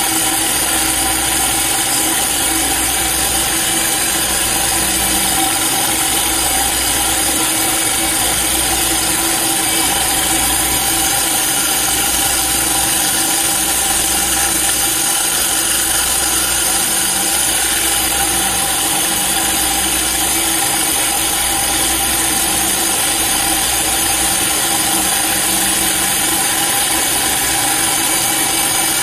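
Handheld electric diamond core drill dry-cutting granite: steady motor whine with the bit grinding against the stone, and a compressed-air blow gun hissing at the cut to clear the dust.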